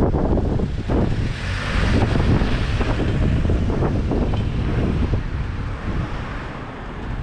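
Wind buffeting the microphone: a loud, gusting low rumble, with a hiss that swells about a second and a half in and fades toward the end.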